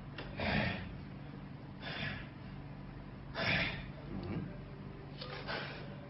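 A person breathing in short, sharp gasps, four or so about a second and a half apart, over a faint steady hum.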